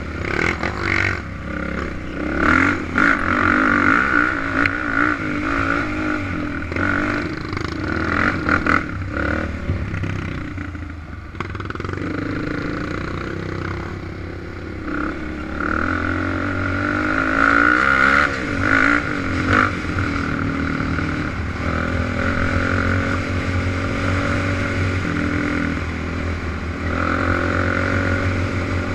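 Suzuki LTZ 400 quad's single-cylinder four-stroke engine running along a trail, revving up and down with throttle changes. Knocks and rattles come from the bumpy ride.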